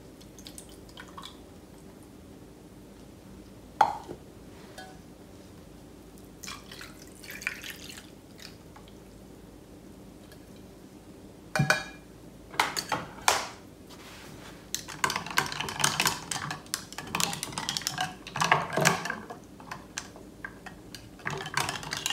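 Orange juice poured over ice in a tall glass, then ice cubes clinking and rattling against the glass as the drink is stirred. There is a single sharp knock about halfway through.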